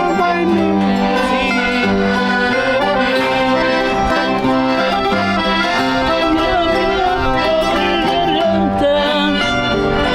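Accordion and plucked string instruments playing traditional folk music together at a steady loud level.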